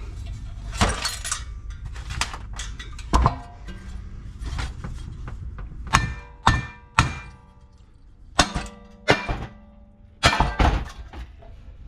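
Hammer striking and knocking on a Briggs & Stratton 550EX engine: about a dozen irregular sharp metal knocks and clanks, several ringing briefly. The part being knocked is stuck on a crankshaft bent so badly that it will barely come off.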